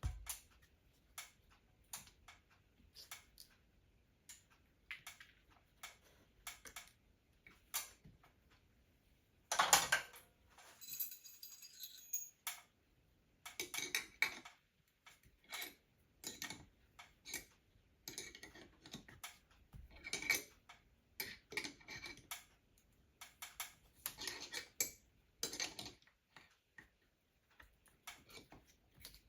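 Irregular metallic clicks and clinks, one or two a second, as a lag eye bolt is screwed into the ceiling by hand; a louder clink about ten seconds in rings briefly.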